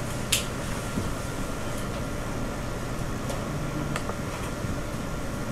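Steady mechanical hum of a fan, with a few light clicks, the sharpest just after the start.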